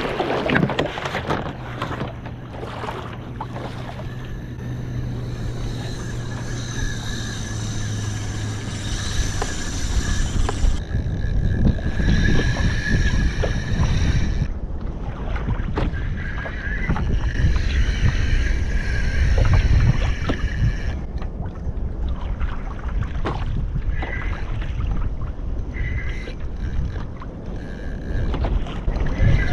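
Fishing reel drag screaming as a hooked fish strips line, in two runs with a short break between them, over water sloshing against a kayak hull.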